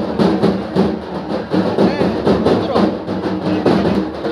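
Music with a steady drum beat, loud and even.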